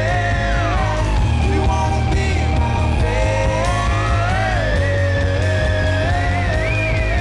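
Live rock band playing loudly: electric guitar, bass and a steady drum beat, with a high part sliding slowly up and down in pitch over the top.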